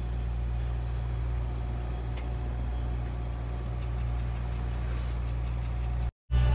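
Sailboat's engine running steadily while motoring under way, a constant low drone. The sound drops out for a moment near the end.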